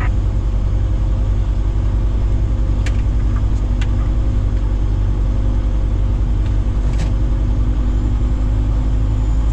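A heavy diesel engine running steadily with an even low drone. A few short, sharp clicks come about three, four and seven seconds in.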